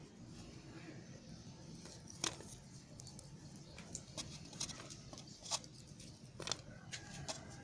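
Soap being cut: about ten sharp, crisp clicks and snaps, scattered irregularly, over a low steady hum.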